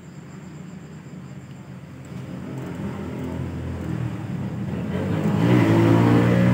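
A motor vehicle's engine drawing near, growing steadily louder and loudest near the end.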